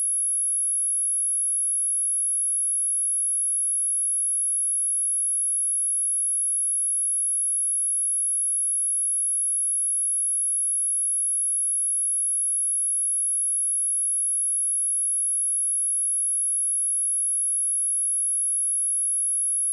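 A steady, high-pitched pure sine-wave test tone at 10753 Hz, held unchanged.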